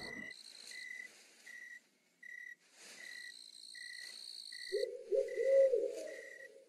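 Night ambience: a cricket chirping steadily about twice a second over faint high insect trilling, then an owl hooting in a wavering call from about two-thirds of the way in.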